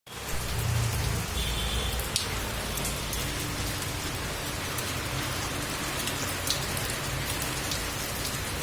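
Heavy rain falling steadily, with scattered sharp drip clicks.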